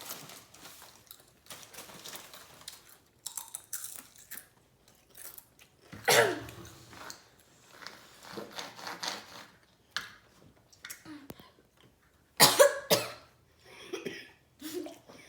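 A child coughing and clearing their throat in short fits, the loudest about six seconds in and again near the end, after eating an extremely hot chili chip.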